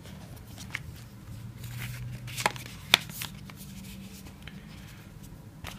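Cardboard packaging handled by hand: the paper insert of an iPhone box is lifted out, with soft rustling and a few short clicks of card, the sharpest about three seconds in.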